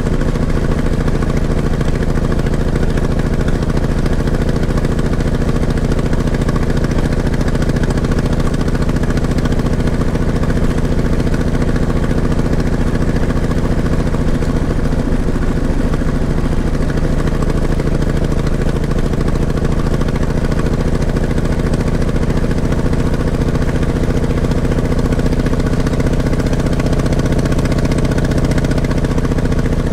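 Motorcycle engine running steadily, its pitch shifting slightly about halfway through.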